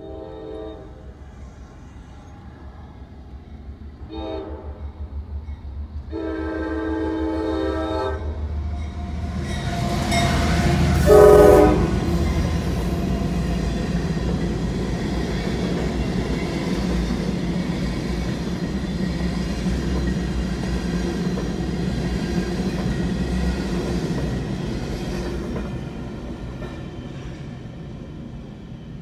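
Horn of a CSX GE CW44AC diesel locomotive sounding several blasts for a road crossing, the loudest a short one about 11 seconds in. Then the locomotive and a string of freight hopper cars rolling over the crossing with a steady noise that fades near the end, heard from inside a car.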